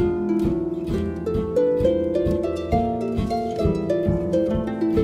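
Concert harp played live: a melody of plucked notes stepping up and down, over a steady beat of low strokes about three a second.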